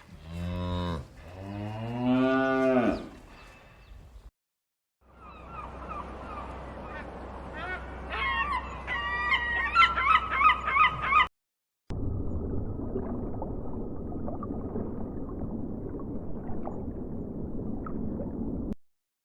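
Animal calls from several clips cut together. First, two long calls from cattle mooing, each rising and then falling in pitch. Then a flock of geese honking over a noisy background, the honks thickest about eight to eleven seconds in. Then a steady noisy din of livestock.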